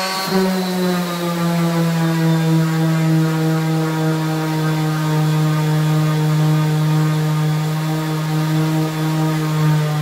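Bosch PEX 300 AE random orbital sander running at its top speed setting, its pad pressed against thick gloss paint on a door. The motor gives a loud, steady hum.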